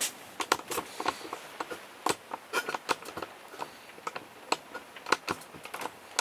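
Irregular light clicks and taps, a dozen or more scattered unevenly, of things being handled and set down on a work surface.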